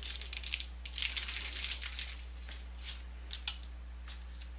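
Crinkling and rustling of trading cards and their plastic or foil packaging being handled, densest in the first two seconds, with a sharp click about three and a half seconds in.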